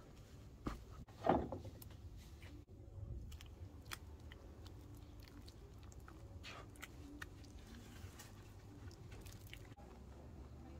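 Silicone spatula stirring and mashing a thick, sticky flour-and-butter dough in a nonstick pan, with an egg being worked in: faint wet squishing and scraping, with one louder stroke about a second and a half in.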